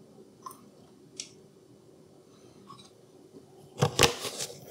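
A few faint clicks, then a quick run of sharp knocks and clatter near the end.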